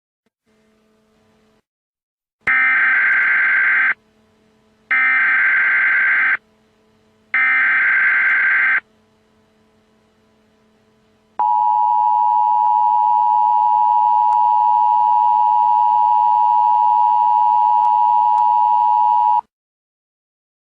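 Emergency Alert System tones: three bursts of warbling SAME header data tones, each about a second and a half long, then after a short gap the steady two-tone EAS attention signal held for about eight seconds before cutting off, which marks the start of a severe thunderstorm warning.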